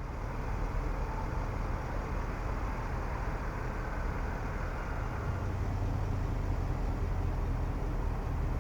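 2014 Range Rover Sport's supercharged V8 vehicle running steadily: an even low rumble under a broad hiss.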